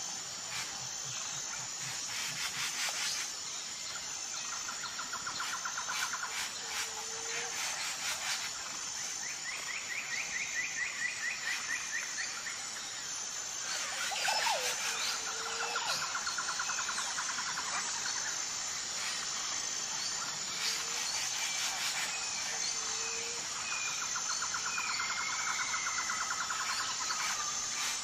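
Birds calling and chirping over a steady high insect drone: repeated rapid trilled calls, short calls and scattered clicks, like a forest dawn chorus.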